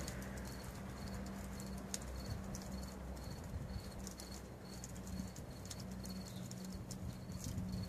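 Electric rotisserie motor turning a spit-roasting whole pig, a low steady hum, over a wood fire crackling with scattered pops. A faint high tick repeats about three times a second.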